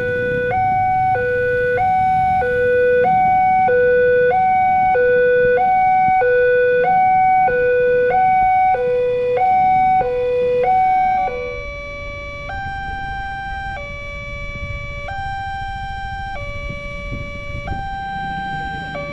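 Electronic two-tone warning alarm of an Indonesian railway level crossing, sounding a high and a low tone in turn about every half second while the barrier comes down. About 11 seconds in it gives way to a quieter alarm at another crossing, whose two tones alternate more slowly, over a low rumble of traffic.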